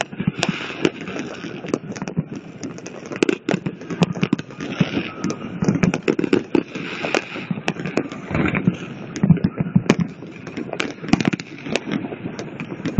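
Fireworks going off: irregular sharp bangs and crackles all through, over a hubbub of voices.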